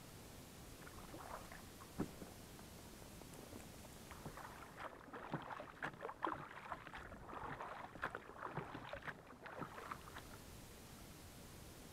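Light water splashing and dripping, short irregular splashes that are busiest in the middle, with a single knock about two seconds in.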